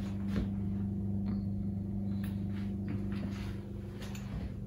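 Steady low hum of a running kitchen appliance, with a few faint soft taps of a knife and fork on roast squash.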